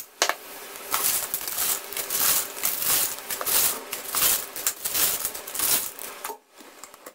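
Fried peanuts scooped with a metal spoon across baking paper and tipped into a glass jar: a quick run of paper crinkles and nuts rattling against the glass, stopping shortly before the end.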